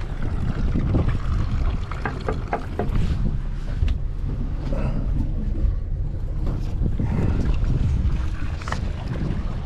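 Wind buffeting the microphone aboard a small boat, a steady low rumble, with a few short knocks scattered through it.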